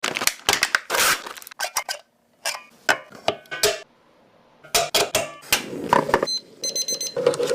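Kitchen prep sounds: a quick series of sharp clinks and knocks of utensils against dishes, some ringing briefly, broken by two short pauses. A little over halfway through comes a rapid run of even, ringing ticks.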